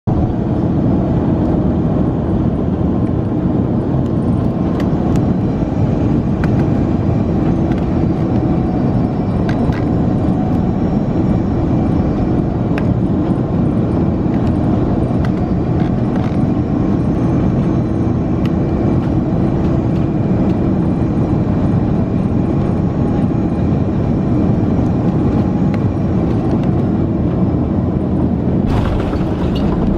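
Steady cabin noise inside an Airbus A330-200 on final approach: engine and airflow noise with a low hum. Near the end it turns suddenly brighter and harsher as the airliner touches down on the runway.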